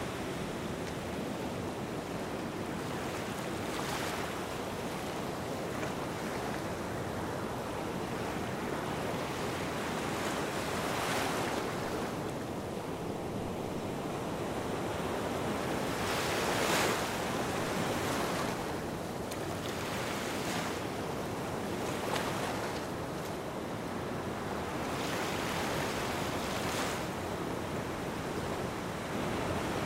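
Small waves washing onto a sandy shore: a steady surf hiss with a brighter wash every few seconds, the strongest a little past halfway.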